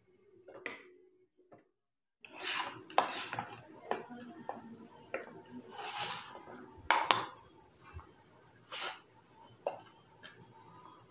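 A spatula scraping and knocking against an aluminium pan as a thick paste is scraped around and out, with irregular metal clinks and scrapes starting about two seconds in. The sharpest clinks come around the middle.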